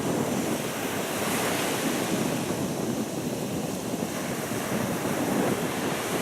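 Sea surf washing ashore steadily, with wind buffeting the microphone.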